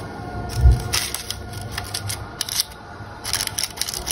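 Baking parchment paper crinkling and crackling in short spells as fingers handle its edge, with one dull thump a little under a second in.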